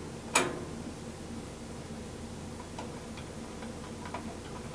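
A sharp metal click about half a second in, then a scatter of faint light ticks, from a hand screwdriver, screws and lock washers as the bandsaw's switch box is screwed onto the riser block.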